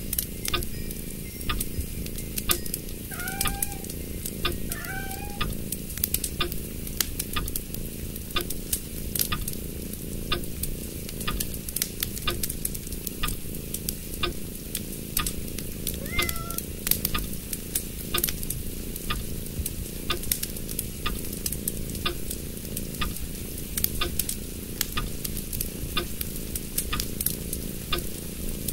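Sheet of origami paper being folded and creased by hand, a steady crackle of many small clicks and rustles. A few short chirps sound about three to five seconds in and once more around sixteen seconds.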